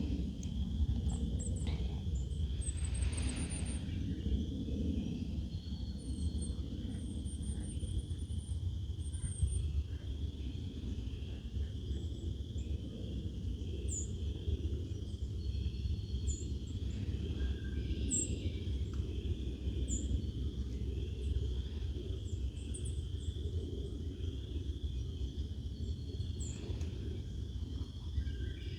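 Small birds calling with short high chirps and a few quick trills at intervals, over a steady low outdoor rumble.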